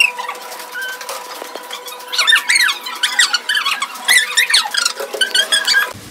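A rapid run of high squeaks and chirps, each sliding up or down in pitch, over a faint steady hum; it cuts off suddenly just before the end.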